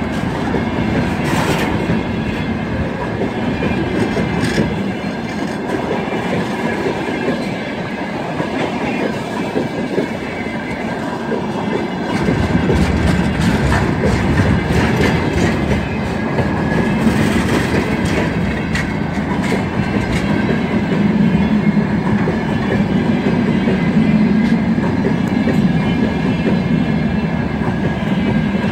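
Train of empty freight wagons rolling past close by: a steady rumble and clatter of steel wheels on the rails, with scattered sharp clicks. It gets louder about twelve seconds in.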